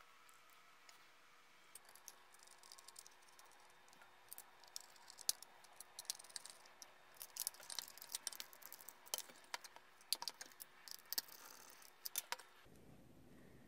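Faint, irregular clicks and ticks of the plastic FlySky GT3B transmitter case being handled and screwed back together with a small screwdriver. The clicks thicken in the second half and stop suddenly near the end.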